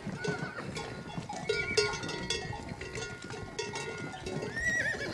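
Herd of horses moving along a paved lane: hooves clattering and the bells they wear ringing, with a horse whinnying near the end.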